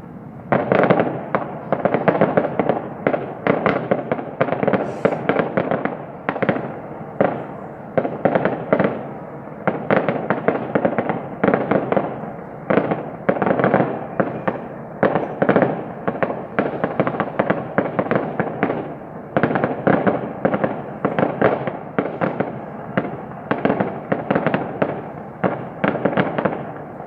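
Fireworks going off in a dense, continuous barrage of cracks and bangs, several a second, starting about half a second in.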